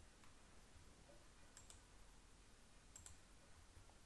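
Near silence broken by three faint, sharp clicks of computer keyboard keys, the last two about a second and a half apart.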